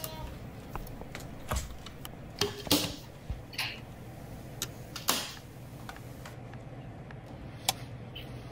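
Scattered single clicks and knocks at irregular intervals over a steady low hum, including light switches being clicked off.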